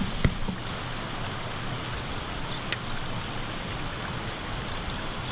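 Steady rushing outdoor noise, with a sharp click just after the start and a faint tick near the middle.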